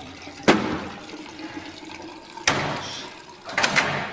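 Water sound effect: two sudden rushes of water that each die away, about two seconds apart, followed by a few sharp clicks near the end.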